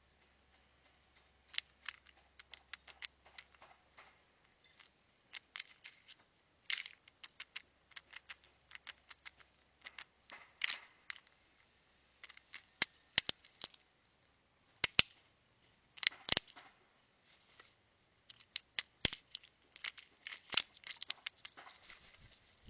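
Crows picking at in-shell peanuts on a concrete ledge: irregular sharp clicks and taps of beak and peanut shells against the stone, some in quick clusters.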